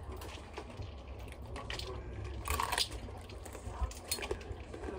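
Quiet clinks, taps and scrapes of kitchen dishes and utensils being handled, with a louder rustling scrape a little past the middle.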